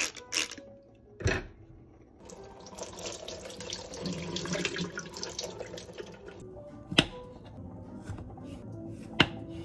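A few knocks, then water running from a tap over strawberries in a stainless mesh strainer for about four seconds. Later come two sharp single knocks of a knife cutting through kiwi onto a wooden cutting board.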